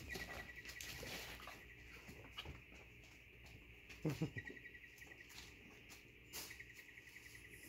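Doodle puppies moving about a pen: paws scuffling and scratching, with a brief low grunt about four seconds in. A faint steady high pulsing hum runs underneath.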